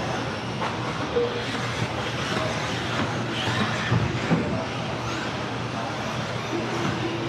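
Electric RC off-road buggies running laps on an indoor carpet track, with scattered knocks and clatter from the cars over the jumps, over a steady low hum.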